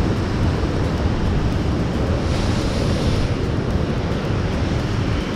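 Ocean surf breaking on rocks, mixed with wind buffeting the microphone as a steady heavy rumble. About two seconds in, a louder hiss of washing water lasts for about a second.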